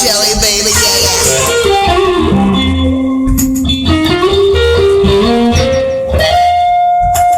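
Instrumental break in a song: an electric guitar lead plays long held notes that step and slide between pitches over a bass guitar line, with a few drum hits.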